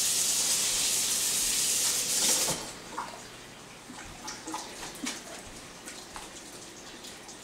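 Kitchen tap running into a sink as a steady hiss, shut off about two and a half seconds in. A few light knocks and clicks follow, knife on cutting board.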